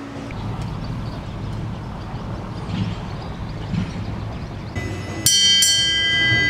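A low steady rumble, then about five seconds in, music starts abruptly with bright, ringing, chime-like sustained tones.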